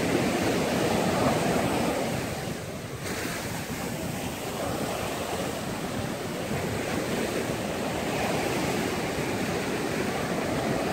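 Ocean surf washing onto a sandy beach, a steady wash of waves that dips briefly about two seconds in, with wind on the microphone.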